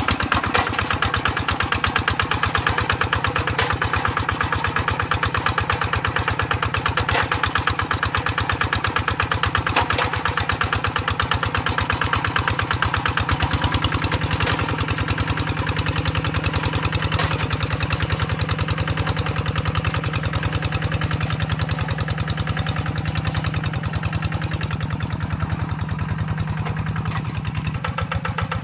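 The single-cylinder diesel engine of a two-wheeled hand tractor runs steadily under load as its iron cage wheels drag a plough through wet paddy soil. A few sharp knocks stand out over the engine's rapid, even firing.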